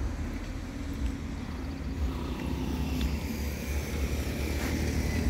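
Steady low rumble of a motor vehicle's engine, growing a little louder toward the end.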